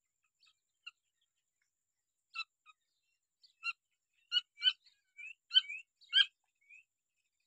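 Grey francolins giving about a dozen short, high chirps, sparse at first and coming in a quick run in the second half.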